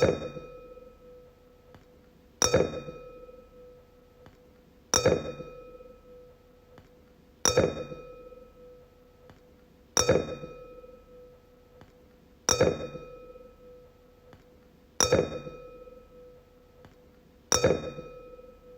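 A wine glass struck over and over, about every two and a half seconds, eight times. Each strike gives a clear ringing tone with higher overtones that fades away over about two seconds.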